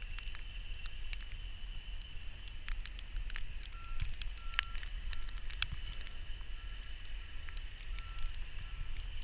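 Vehicle backup alarm beeping about twice a second, starting about four seconds in, over a steady low rumble, a faint steady high whine and scattered sharp clicks.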